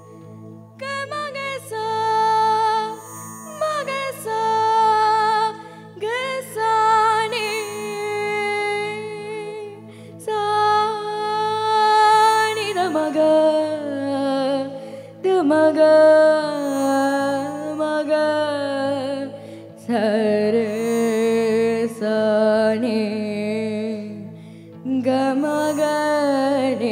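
A girl sings a classical-style Tamil film song into a stage microphone, her voice wavering through ornamented runs and held notes. A live band of keyboard and guitar accompanies her over a steady low backing.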